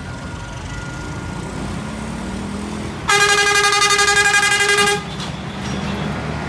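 A truck horn gives one loud, steady blast of about two seconds, with a fast flutter in its tone, starting about halfway in. Passing road traffic and a truck engine rumble underneath.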